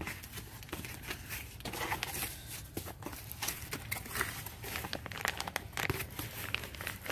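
Packaging crinkling and rustling with many small irregular crackles as a dog bed is pulled out of its box and wrapping.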